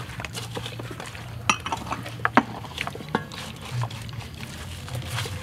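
Hands massaging marinade into raw whole chickens in a metal bowl: wet squelching and rubbing with a few sharp clinks and knocks against the bowl, the loudest about one and a half and two and a half seconds in, over a steady low hum.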